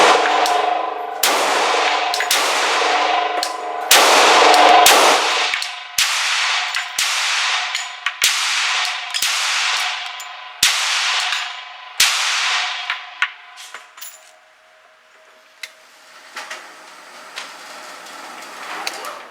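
Glock 40 10mm pistol firing a rapid string of roughly fifteen shots over about fourteen seconds, each crack followed by a ringing echo. A few faint sharp clicks follow near the end.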